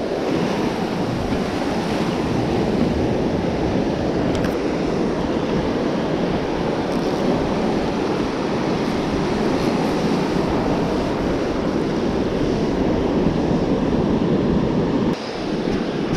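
Ocean surf breaking and washing up the sand in a steady wash of noise, with wind rumbling on the microphone.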